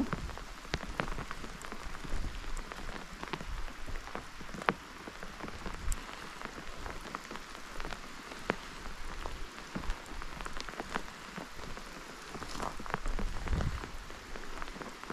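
Steady rain falling, with many individual drops ticking sharply close by. A low rumble swells briefly about thirteen seconds in.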